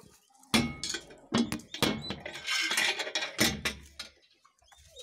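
Wooden chicken-coop door being handled and shut, with its metal latch worked: several sharp knocks and clatters, and a rattling, scraping stretch in the middle.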